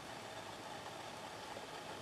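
Steady background noise: an even hiss with a constant mid-pitched hum and no distinct events.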